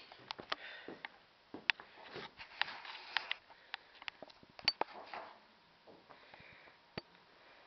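Handling noise from a handheld camera: scattered sharp clicks and rubbing, with a few soft breathy sounds in between.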